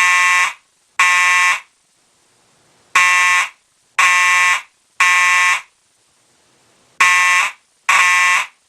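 Simplex 4901-9805 DC fire alarm horn sounding in the code 3 (temporal-three) pattern, pulsed by hand-tapping its wires: loud blasts of one pitched tone, each about half a second, in groups of three with a longer pause between groups.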